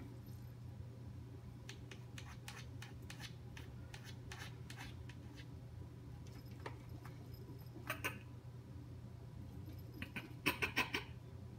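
A cat's claws tapping and scratching on window glass as it paws at a frog outside: scattered light clicks, a short scrape about eight seconds in, and a quick run of louder taps near the end.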